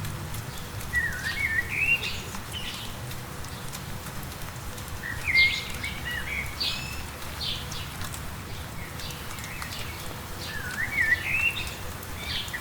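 A songbird singing three short phrases of quick rising and falling notes, about every four to five seconds, over a steady hiss of light rain.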